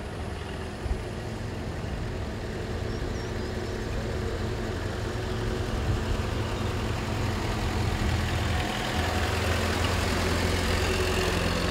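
WWII-era military jeep's four-cylinder engine running at low speed as it drives up and passes close by, growing louder toward the end.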